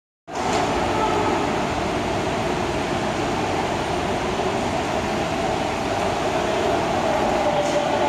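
Steady rumble and hum of a railway station concourse: mechanical noise from the building and its machinery, with no distinct events.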